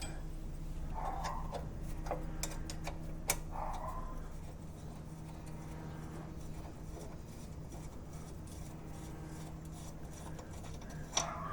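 Faint clicks and light metallic rattles of hand tools as the brake hose bracket is unbolted and freed from a car's front suspension, over a steady low hum.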